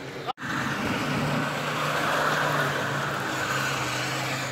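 Off-road 4x4 engine running under load, with a rushing noise that swells in the middle and eases near the end. The sound cuts out for an instant about a third of a second in.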